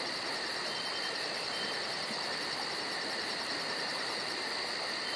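Insects chirping steadily: a high pulsing chirp, about seven a second, over a continuous high buzz.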